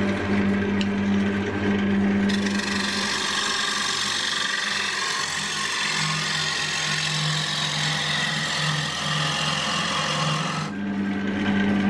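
Wood lathe running with a steady motor hum. From about two seconds in, a turning tool cuts into the spinning ash bowl blank with a rough scraping hiss that stops near the end. While the tool bites, the hum drops in pitch as the motor slows under load.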